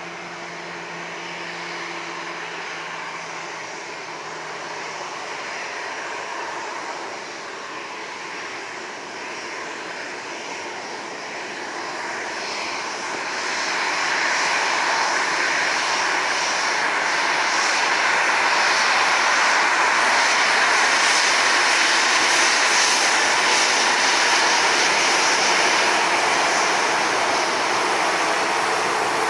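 Boeing 737-800's CFM56 turbofan engines on a takeoff run, a steady jet rush that grows louder, swells sharply about halfway through and then holds loud.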